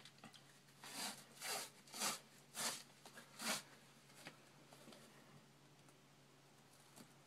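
Compression tape being pulled off its roll and wound around an elastic hip wrap: about five short, faint ripping pulls, one every half second or so.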